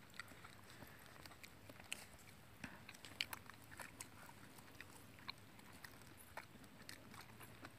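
Near silence with faint, scattered clicks and mouth sounds of people chewing food eaten by hand.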